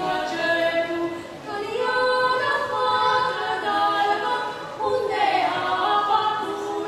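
Two women singing a Romanian Christmas carol together a cappella, with held, sliding notes and no accompaniment.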